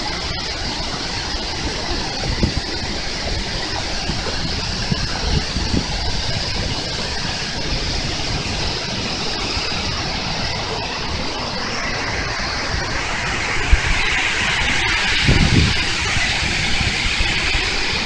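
Shiraito Falls' many thin cascades pouring over the cliff: a steady, dense rush of falling water, growing brighter in tone about two-thirds of the way in. A few brief low thumps break through.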